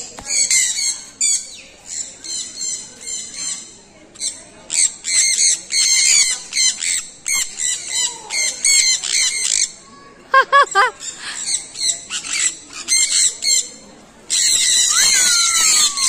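A flock of birds in a bird-park aviary chattering and squawking, with rapid high-pitched calls that come in bursts and short lulls between them.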